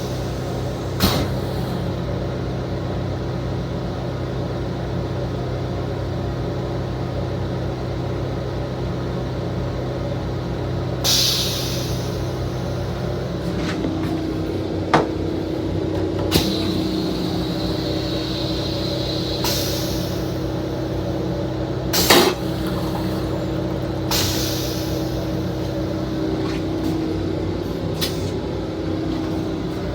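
Steady hum of an M7 electric railcar's running equipment heard inside the car, its pitch shifting about halfway through. A few sharp clicks or knocks and two short hisses break in.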